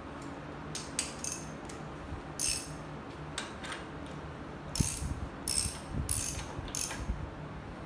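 Half-inch ratchet with a 36 mm socket clicking in about ten short, irregular bursts while a motorcycle fork tube cap is turned down against the fork spring.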